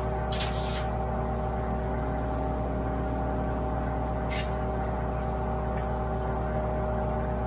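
WoodMaxx MX-8800 PTO-driven wood chipper running off a Kubota L3901's three-cylinder diesel, a steady drone with a constant hum, chipping apple tree prunings. Brief high crackles come about half a second in and again just past four seconds.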